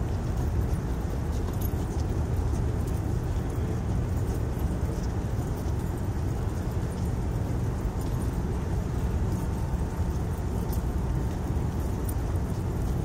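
Shoes of a long column of uniformed officers marching on a paved street, many footsteps blending into a shuffle, over a steady low rumble.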